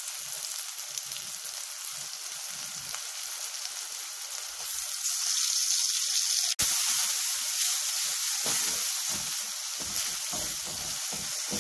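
Chopped onion and tomato sizzling in hot mustard oil in a metal wok, the sizzle getting louder about five seconds in. In the last few seconds a wooden spatula stirs them, knocking against the pan.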